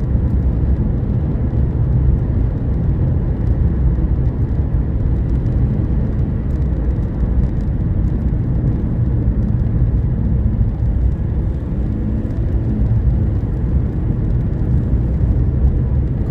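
Steady road and engine noise of a car cruising at about 43 mph, heard from inside the cabin.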